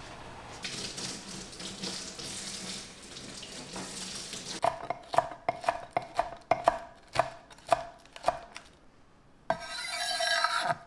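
Chef's knife chopping green onions on an end-grain wooden cutting board: about a dozen crisp knocks of the blade on the wood, roughly three a second. After a pause come a single chop and a brief scraping sound near the end. Soft rustling comes before the chopping starts.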